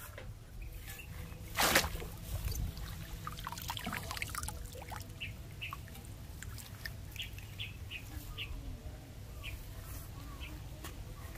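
A short, loud splash about two seconds in, then lighter trickling and rustling in shallow rice-paddy water and grass, with scattered short bird chirps.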